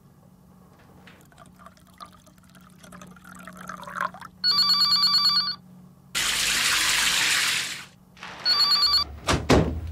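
Telephone ringing with a rapid trilling ring, once for about a second and again, more briefly, near the end. Between the two rings a loud rush of noise lasts under two seconds, and a few sharp knocks follow the second ring.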